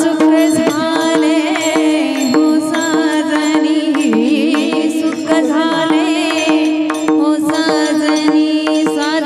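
Devotional kirtan music: a singer's voice in wavering, ornamented phrases over a steady held drone, with quick hand-drum strokes and sharp percussive hits throughout.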